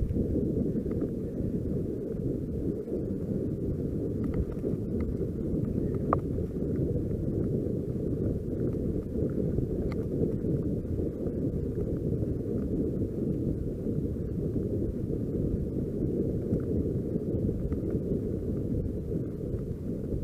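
Steady wind noise on the microphone of a riding mountain biker's camera, over the rumble of the bike's tyres on a grassy dirt path, with a few faint clicks.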